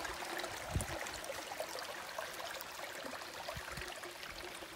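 Shallow stream trickling and splashing over rocks, a steady even rush of water, with a few soft low thumps about a second in and again past three seconds.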